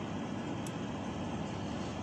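Steady rushing background noise, with a faint click less than a second in.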